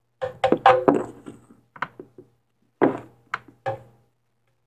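A plastic measuring spoon knocking and clinking against a glass salt jar and a blender jar as salt is scooped and tipped in: a quick cluster of knocks in the first second, then a few single knocks.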